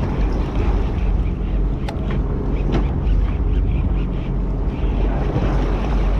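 Steady low hum of a charter fishing boat's engine running, mixed with wind buffeting the microphone, with a few sharp clicks about two to three seconds in.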